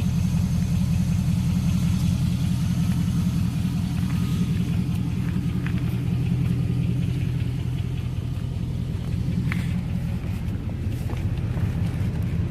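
Chevrolet Avalanche engine idling, a steady low rumble, with a few faint ticks.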